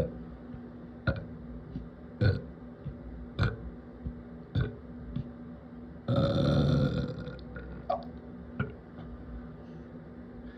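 A person burping from drinking Sparkling Ice carbonated water: short sharp sounds about a second apart, then one long loud burp about six seconds in. A steady low hum runs underneath.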